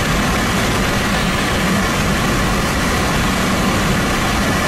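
Car driving along a wet highway: a steady, even rush of tyre and wind noise.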